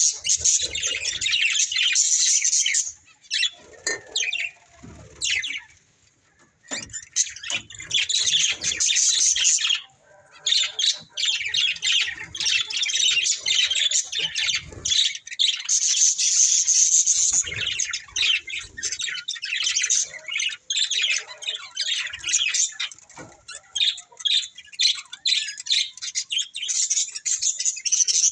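Budgerigars chattering and chirping in a dense, rapid run of high warbling calls, with a quieter lull about five seconds in and a brief pause near ten seconds.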